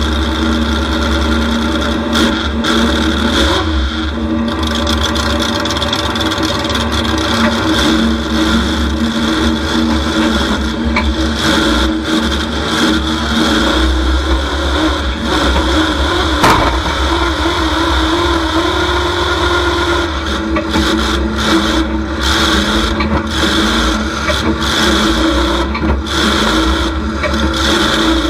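Demolition derby truck's engine heard from inside the cab, running loud through open exhaust pipes that stand straight up through the hood, its pitch rising and falling as it is revved. A single sharp knock about halfway through.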